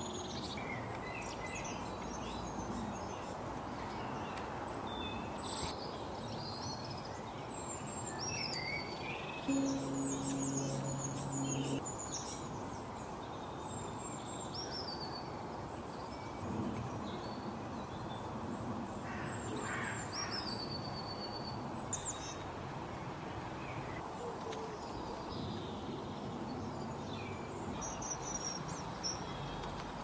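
Songbirds chirping and singing in short phrases over steady background noise, with a low steady hum for about two seconds roughly ten seconds in.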